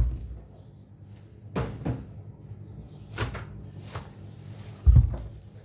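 Bunches of leafy greens and eggplants being handled and set down on a freezer top: a few knocks and rustles, with a heavy thud about five seconds in. A steady low hum runs underneath.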